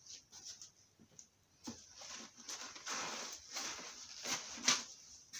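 Foam packing blocks being handled and pulled from a plywood crate, rustling and scraping against the plastic stretch wrap in irregular bursts, the loudest a few seconds in.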